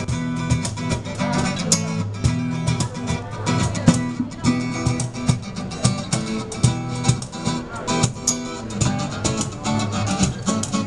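Acoustic guitar played alongside a cajón struck by hand in a steady beat.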